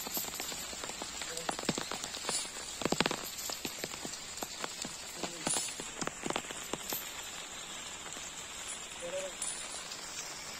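Rain falling, a steady hiss with many irregular drop ticks on wet ground and leaves, a cluster of them about three seconds in.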